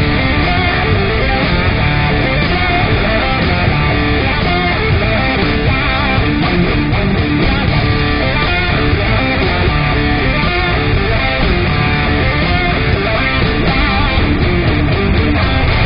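Background music: loud, steady rock with electric guitar.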